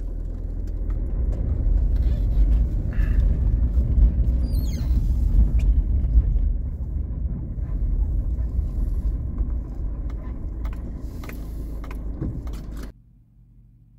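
Van engine running as the van is driven slowly across a car park, then switched off about thirteen seconds in, the rumble cutting off suddenly. A brief high squeak sounds about five seconds in.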